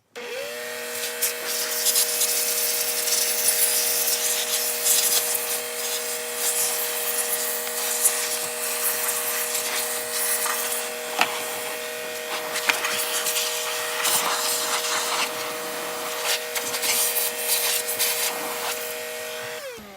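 Vacuum cleaner switched on, running steadily with a whine and rushing air over a car's center console, with occasional clicks and rubbing from the nozzle; it is switched off near the end and its motor winds down.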